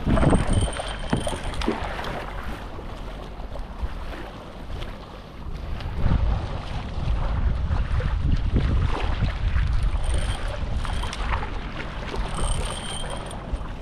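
Kayak paddle strokes splashing through seawater, with wind rumbling on the microphone.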